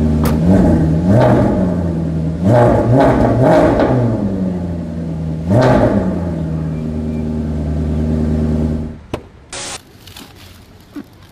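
Van engine revved repeatedly while standing: the pitch climbs and drops back several times over a steady idle. The engine sound cuts off suddenly about nine seconds in, followed by a short hiss.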